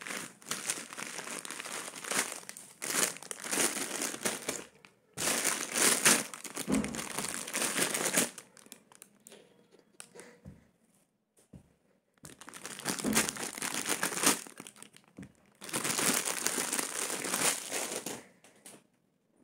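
Plastic packaging, bubble wrap and a clear plastic bag, crinkling as it is handled and pulled open, in four long spells with short pauses between. A few light knocks fall in the quieter stretch midway.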